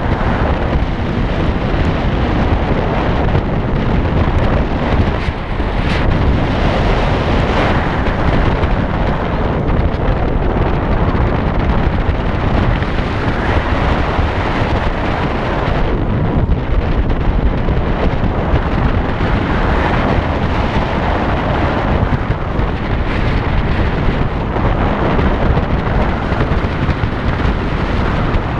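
Heavy wind buffeting the microphone of a moving motorcycle: a loud, steady rush that swells and eases every few seconds.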